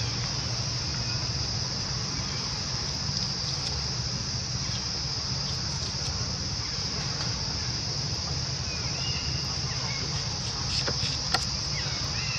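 Steady high-pitched insect drone over a low rumble, with a few sharp clicks near the end.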